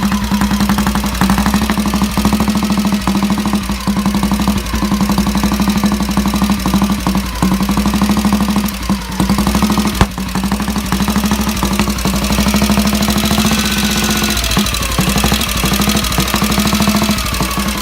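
1928 Norton CS1's single-cylinder overhead-cam engine running, its pitch rising and falling with the throttle. There is one sharp knock about ten seconds in.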